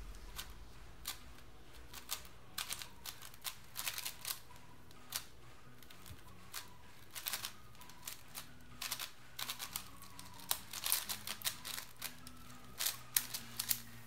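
Cubicle Wushuang M 5x5 speedcube being turned fast, its plastic layers clicking in irregular runs of rapid turns broken by short pauses.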